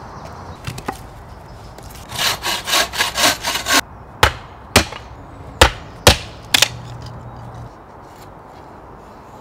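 A wooden mallet striking the spine of a fixed-blade knife five times in sharp, separate knocks, batoning it down through a stick to split kindling on a tree stump. Before the knocks comes a quick run of about eight rasping strokes.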